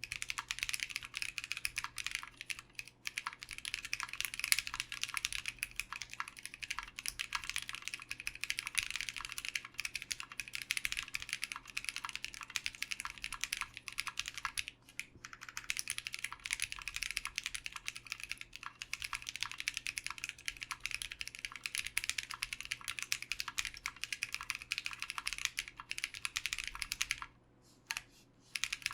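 Fast, continuous typing on a custom HHKB-layout mechanical keyboard with lubed 62 g Pacos tactile switches on a polycarbonate plate and PBT keycaps. There is a short pause near the end, with one keystroke in it, before the typing picks up again.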